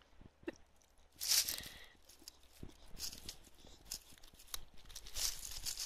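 A dog chewing and crunching on a raw, frozen chicken leg, in irregular bites and gnaws, with a loud crunch about a second in.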